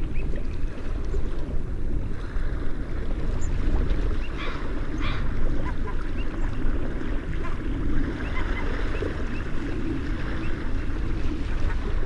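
A mixed flock of gulls and other waterside birds feeding, with scattered short bird calls over a steady low rumble of wind on the microphone.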